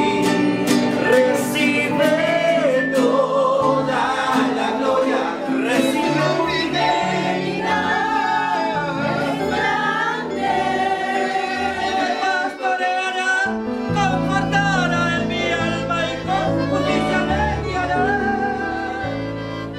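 A group of voices singing a worship song with instrumental accompaniment; a deeper bass part comes in about two-thirds of the way through.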